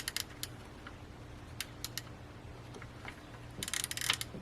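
Small metallic clicks and taps of hand tools and parts being handled in an engine bay, scattered at first, then a quick run of rattling clicks about three and a half seconds in.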